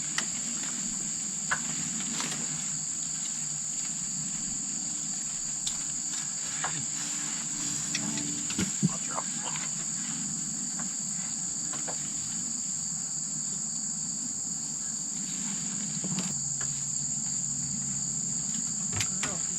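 Steady high-pitched insect chorus, crickets singing without a break, with scattered light clicks and rustles from handling near the microphone.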